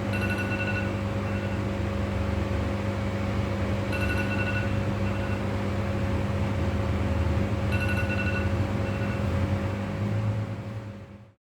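Steady low electric hum, with a short high chirp repeating about every four seconds; it cuts off suddenly near the end.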